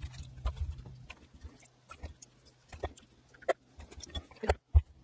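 Teriyaki sauce being ladled into glass canning jars of raw chicken: a plastic ladle scooping from a glass bowl and tapping against glass, heard as a handful of light, irregular clicks and taps.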